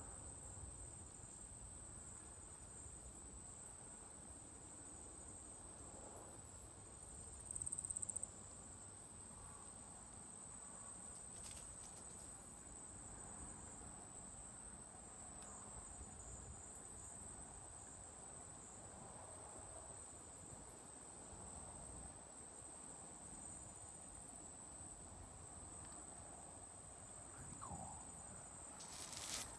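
Night insects trilling: one steady, high-pitched, continuous tone that swells briefly about eight seconds in. A short, sharp noise comes near the end.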